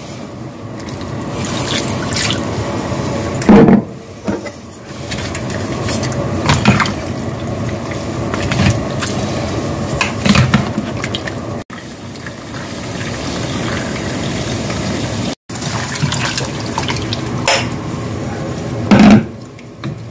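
Liquid poured from a bottle and splashing over raw chicken pieces, with a wooden spatula knocking and scraping as the chicken is stirred in a bowl and then in a pot of water. Several sharp knocks stand out, and the sound breaks off briefly twice.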